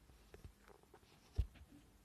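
Faint scattered taps of fingers typing on a phone's touchscreen keyboard, with one louder knock about one and a half seconds in.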